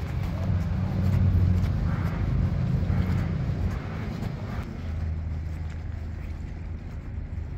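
Urban roadside noise: a low rumble of traffic, loudest in the first couple of seconds, settling into a steadier, quieter low hum about five seconds in.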